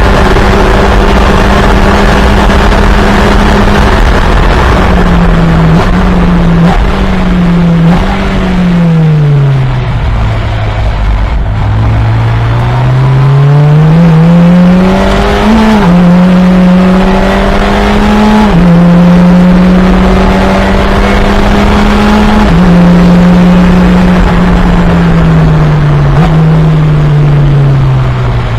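Fun Cup race car engine heard from on board on a lap. It runs at high revs, then drops in quick downshifts to low revs about ten seconds in. It then climbs again through the gears with upshifts and falls away slowly near the end.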